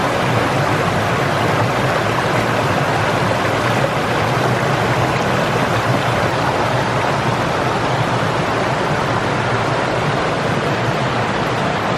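Loud, steady rush of falling water from a waterfall.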